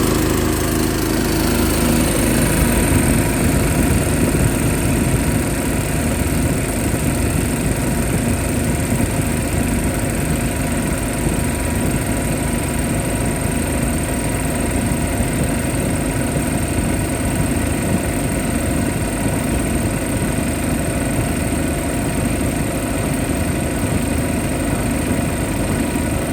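CP (Chicago Pneumatic) industrial air compressor running steadily, with an even low mechanical pulsing and a thin high whine.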